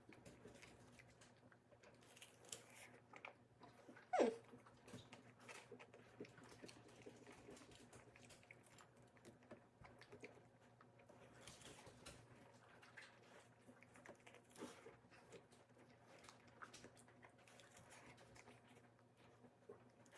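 Faint chewing, with small clicks and crunches as food is eaten, over a low steady hum. About four seconds in, one brief high squeak falls quickly in pitch.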